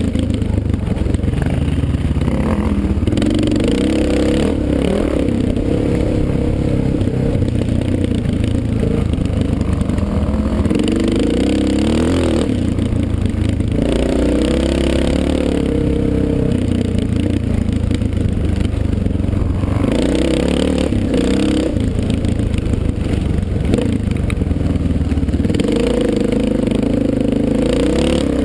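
Dirt bike engine being ridden along a trail, its revs climbing and dropping over and over with the throttle and gear changes, with a few brief lifts off the throttle.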